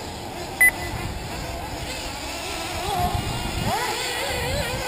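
Small nitro engines of 1/8-scale RC buggies running around the track, their whining pitch rising and falling as they rev through the corners, louder in the second half as a buggy passes close. A short electronic beep sounds once, about half a second in.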